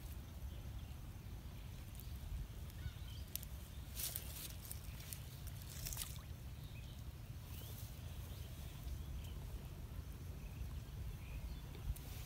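Low rumble of wind on the microphone, with a short splash about six seconds in as a plastic bag drops into the pond water, and a couple of brief knocks or rustles a little before it.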